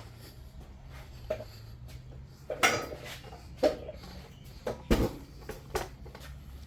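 Small metal parts and tools clinking and knocking, five or so sharp clicks a second or so apart, over a steady low hum.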